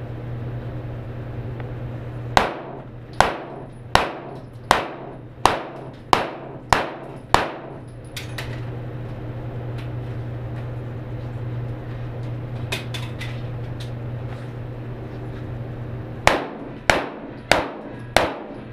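Handgun shots echoing in an enclosed indoor range: a run of eight shots about two-thirds of a second apart, a few faint clicks in the pause, then four more quick shots near the end.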